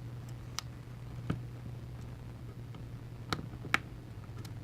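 Faint scattered clicks, about five, as the iPhone 6 screen's flex-cable connectors are pressed onto their sockets on the logic board and small parts are handled, over a steady low hum.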